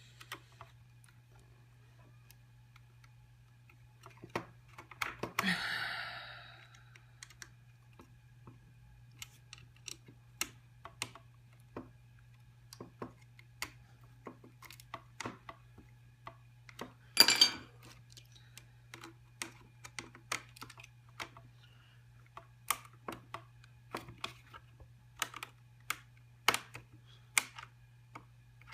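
Scattered, irregular sharp clicks and taps of a screwdriver working small screws and handling small metal and plastic computer parts. There is a brief scrape about five seconds in and one louder clack near the middle, over a faint steady low hum.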